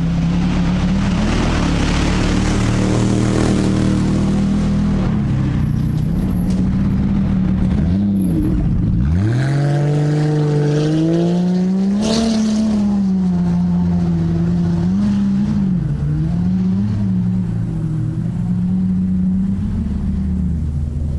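Off-road race car's engine running hard, its revs rising and falling continuously as it is driven. About nine seconds in the revs drop sharply, then climb back up again.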